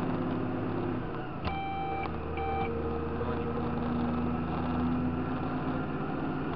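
Tractor engine running steadily, heard from inside the cab, its note shifting about a second in. About a second and a half in, an electronic beep sounds: one longer tone, then a short one.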